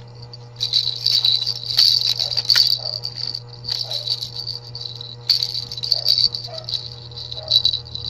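Orange plastic baby rattle with two cage-like balls being shaken in bursts: high-pitched rattling that starts about half a second in, with short pauses between bouts.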